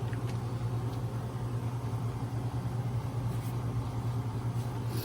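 A steady low mechanical hum, like a motor or engine running, with a few faint clicks near the start and near the end.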